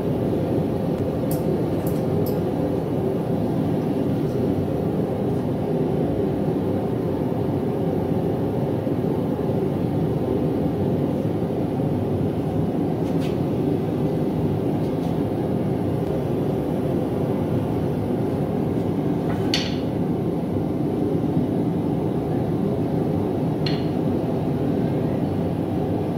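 Propane forge burner running steadily, with a few short light clicks now and then.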